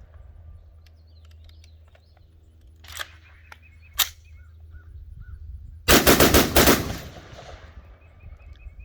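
SIG Rattler 5.56 short-barreled rifle firing: two single shots about a second apart, then a fast string of about eight shots in roughly a second through its binary trigger. The fast string is the loudest part and dies away in a trailing echo.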